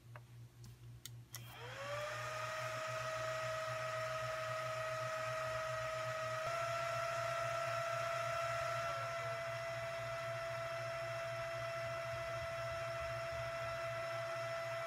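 Supermicro SYS-E300-8D mini server's cooling fans spinning up to full speed at power-on, a steady whine with airflow hiss after a few clicks. The whine steps up slightly about six seconds in. Near the end it slides down as the fans settle to a slower speed once the BIOS has finished booting.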